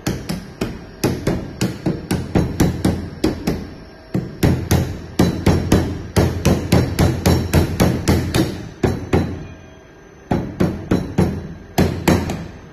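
Light, rapid hammer taps, about four a second, seating the end plate onto the air-motor cylinder of an Ingersoll Rand IR-231C impact wrench during a rebuild. The taps come in runs, with short pauses about four and ten seconds in.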